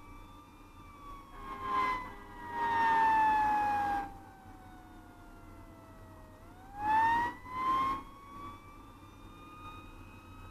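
Fire engine siren wailing, its pitch sliding slowly down for several seconds and then winding back up, over the truck's steady engine rumble. Loud air-horn blasts cut in: a long one about three seconds in and two short ones around seven to eight seconds.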